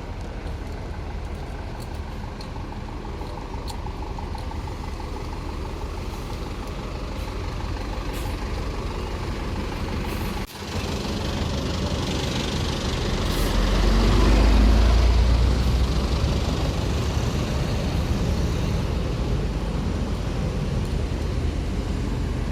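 Road traffic rumbling steadily, with a heavy vehicle's engine swelling loud and low about two-thirds of the way through, then easing. The sound drops out for a moment near the middle.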